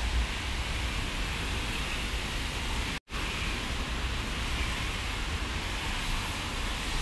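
Steady rushing noise of rain and car tyres on wet roads, with a low rumble underneath. The sound drops out completely for a split second about three seconds in.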